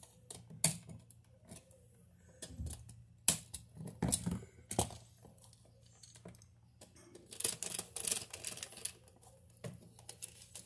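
Irregular small clicks and taps of a wall outlet and its wires being handled, with a screwdriver at a terminal screw near the end.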